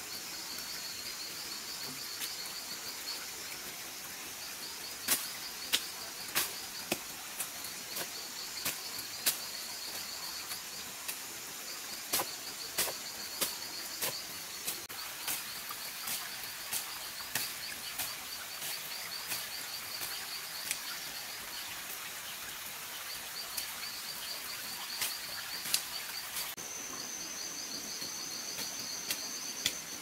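Insects trilling steadily in repeated pulsed bursts. From about five seconds in until near the end, a long series of sharp snaps and clicks from weeds being pulled and broken by hand stands out above them; near the end the insect trill shifts higher.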